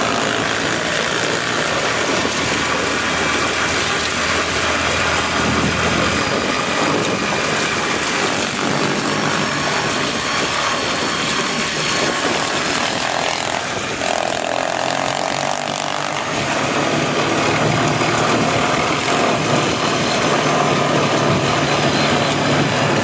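ATV engine running under way, with tyres rolling over gravel and wind noise. The engine note shifts about two-thirds of the way through.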